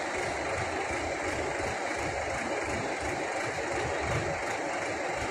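Hydra mobile crane's diesel engine running steadily.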